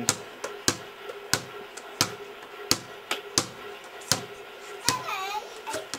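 A small plastic play ball bouncing repeatedly on paving slabs: about nine sharp knocks at a steady pace, roughly one every two-thirds of a second.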